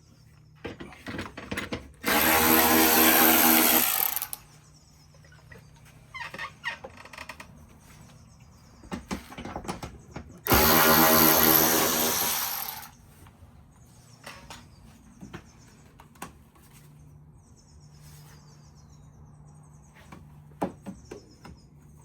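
Power drill spinning in two bursts of about two seconds each, several seconds apart, driving out the screws that hold the grille panels, with clicks and knocks of handling parts in between.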